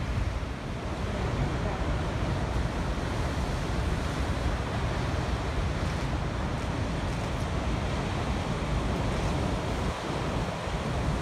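Heavy ocean surf from a distant hurricane's swell breaking on a rocky shore: a steady, dense wash of crashing waves, with wind buffeting the microphone.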